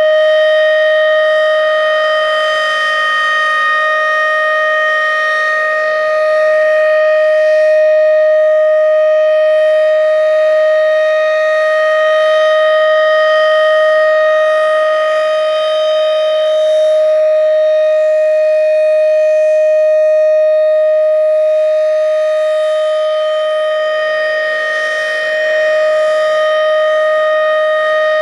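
Federal Signal Thunderbeam RSH-10 outdoor warning siren sounding its full-alert steady tone, one loud continuous pitch with strong overtones. The loudness swells and eases slowly as the rotating siren turns.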